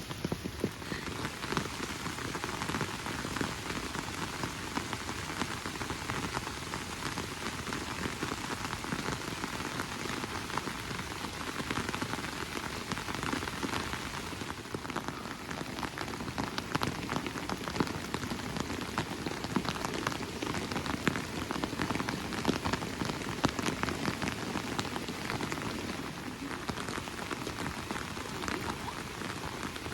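Steady rain falling, with many close individual drops ticking through it.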